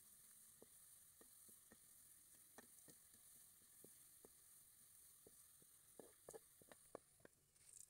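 Faint sizzling of sliced onions frying in oil in a metal pan, browning to light brown for beresta. Scattered clicks of a wooden spatula scraping and tapping the pan run through it and grow more frequent near the end.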